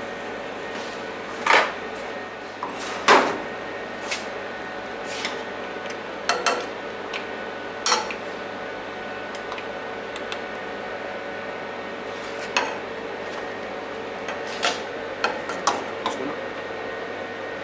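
Metal spoon clinking and scraping against a small aluminium saucepan and tapping on a plate as sauce and mussels are spooned out: a string of separate short clinks and knocks, irregularly spaced, two of the loudest in the first few seconds and a quick cluster near the end, over a steady background hum.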